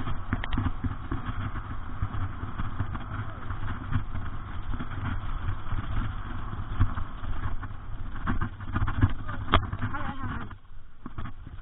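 Wind buffeting the microphone and the rattle of a mountain bike being ridden over rough trail, with a sharp knock about nine and a half seconds in. The noise drops off abruptly near the end.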